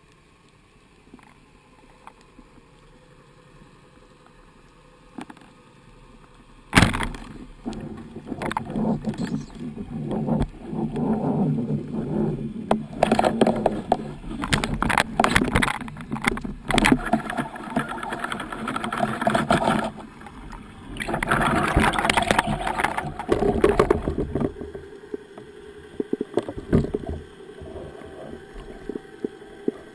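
Underwater sound from a camera on a wooden speargun (Thorpedo 93 inverter). After a faint steady stretch, a sharp loud crack about seven seconds in, typical of the speargun firing. Then some seventeen seconds of loud rushing water and repeated knocks as the speared fish is fought and brought up, dying down near the end.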